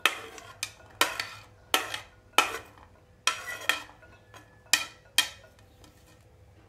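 A metal spoon scraping and tapping against a ceramic plate as pomegranate seeds are pushed off into a bowl: about ten sharp, quick strokes, then quiet for the last second or so.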